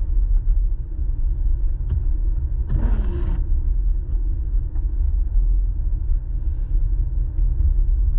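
Steady low road rumble inside a moving car's cabin on a wet road, with a brief louder swish about three seconds in.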